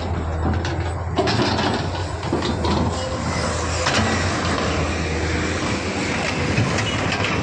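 Komatsu PC210 hydraulic excavator's diesel engine running steadily as the machine digs, getting louder about a second in, with scattered short knocks.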